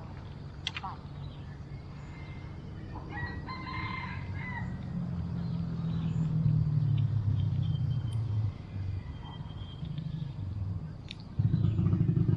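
A rooster crows once, about three seconds in. A low engine hum from a passing vehicle runs underneath; it swells from about five seconds and jumps louder near the end.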